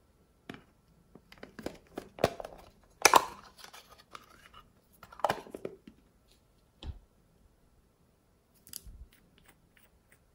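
Hands handling plastic makeup containers, a shell-shaped plastic compact and a nail polish bottle, making irregular clicks, taps and plastic clatter. The loudest clatter comes about three seconds in, with a dull thump past the middle and a few lighter clicks near the end.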